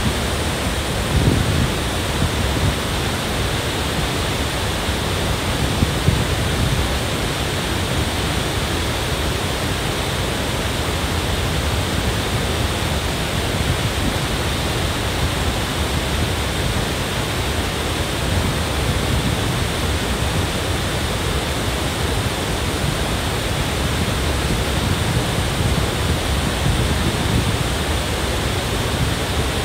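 Cameron Falls' steady roar of falling water, with the creek rushing over rocks below it, even and unbroken throughout.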